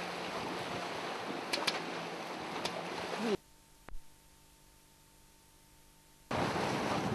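Wind rushing over the microphone and water washing past a sailing boat, with a few faint clicks. About three seconds in it cuts off abruptly to a faint steady hum for about three seconds, then the wind and water noise comes back just as suddenly.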